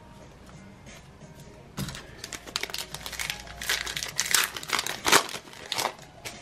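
Cellophane wrapper of a Mosaic football card pack crinkling as it is torn open and handled, in irregular bursts starting about two seconds in and loudest near the five-second mark, over faint background beat music.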